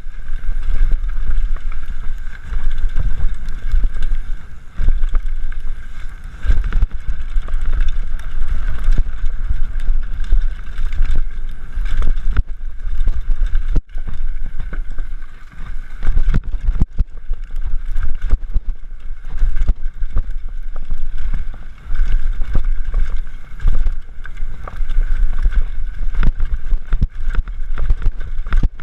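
Heavy wind buffeting on the microphone of a camera riding a mountain bike at speed, with frequent clattering knocks from the bike over rough ground.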